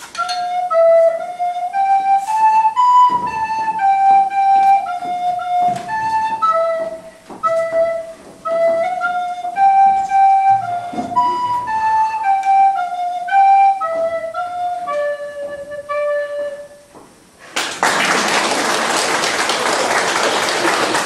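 Soprano recorder playing a simple melody of held notes that step up and down. About 17 s in the playing stops and a burst of applause follows.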